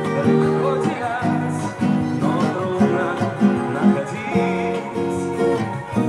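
Acoustic guitar played as a rhythmic chord accompaniment, picked and strummed, the chords changing every second or so.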